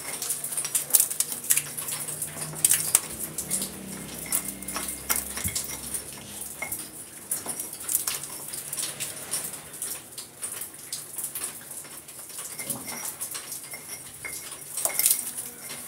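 Small metal hand tool scraping and chipping at the plaster and masonry of a thick wall, widening a hole by hand: irregular sharp scrapes and clinks.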